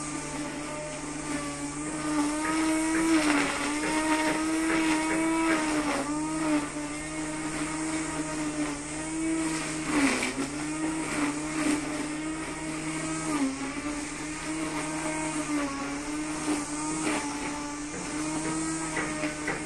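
Brush cutter motor running steadily at high speed while cutting grass and weeds. Its pitch sags briefly several times, about every three to four seconds, as the cutting head bites into denser growth, then recovers.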